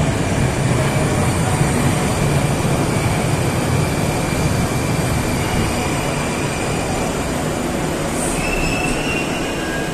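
Moscow metro 81-760A "Oka" train pulling into the station and slowing along the platform: steady wheel and running noise that eases off as it brakes, with a short high squeal near the end.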